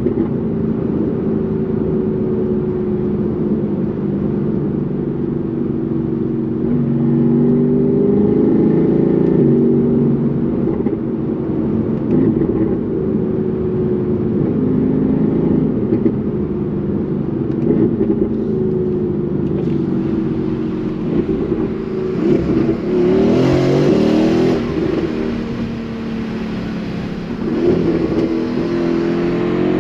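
Mercedes-AMG GT R Pro's twin-turbo V8 running through an aftermarket Fi exhaust while driving. The engine note holds fairly steady for most of the stretch, then gets brighter and harder about three-quarters of the way through, and climbs in pitch again near the end as the car accelerates.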